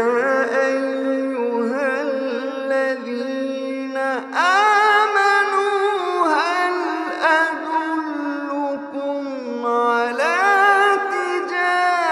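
A man reciting the Quran in melodic tajweed style, holding long drawn-out notes with ornamental pitch turns, beginning fresh phrases about four seconds in and again near ten seconds.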